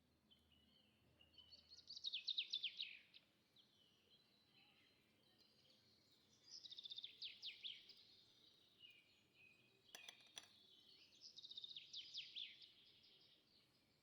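Birdsong: three phrases of rapid, descending trilled notes, with a brief cluster of faint clicks about ten seconds in.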